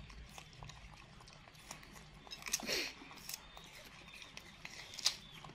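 Baby macaques biting into and chewing crisp green apples: faint, scattered crunching and wet smacking clicks, with a slightly louder burst about two and a half seconds in and a sharp click near the end.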